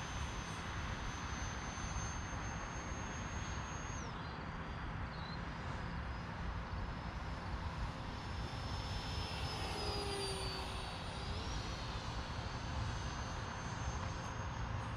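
Electric ducted fan of a Freewing F-22 Raptor 64mm 4S EDF model jet in flight, a thin high whine over a steady rushing noise. The whine holds steady, drops sharply about four seconds in, sags a little more, then climbs again from about eleven seconds in as the throttle and passes change. Wind rumbles on the microphone underneath.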